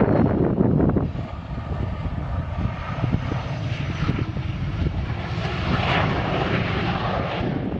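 Business jet's turbofan engines running: a steady rush with a thin high whine through it, building a little near the end. Wind buffets the microphone with a low rumble in the first second.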